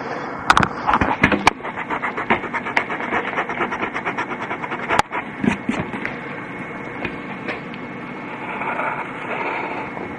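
A pen drawing on paper: quick scratchy strokes, about four a second, in the first half with a few sharp taps, then slower, steadier scratching.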